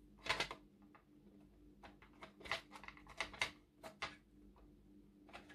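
Light clicks, taps and small rattles of plastic model-truck parts being handled and fitted onto the chassis, a dozen or so separate clicks with short pauses between them.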